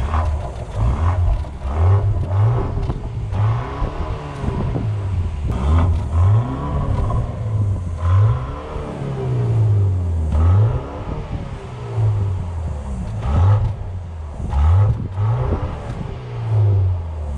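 BMW X1 M35i's B48 2.0-litre turbocharged four-cylinder revved repeatedly from standstill, heard at the exhaust tips, in a string of rising and falling blips, some quick and some held longer. It has a quite muted sound, and a soft rev limit caps the revs while parked.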